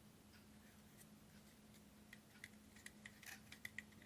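Near silence with a faint steady hum, broken in the second half by a scatter of faint small clicks and taps of hands handling craft pieces.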